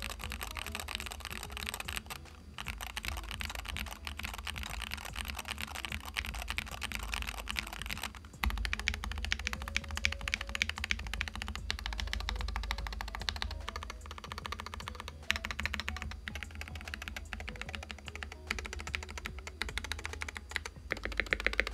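Hard typing on a Wooting 60HE 60% keyboard with stock Gateron Lekker linear magnetic switches and ABS keycaps: a dense run of key clacks with brief pauses about two and eight seconds in. The reviewer finds the keystrokes a little hollow even with the internal foams, and suspects the plastic case may limit the sound.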